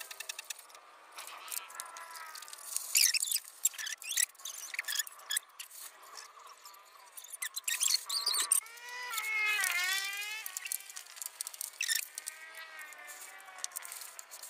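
High squeaks and short scrapes as a trowel smooths a wet concrete baluster turned by hand on a wooden jig. The squeaks bend up and down in pitch, clearest near the middle.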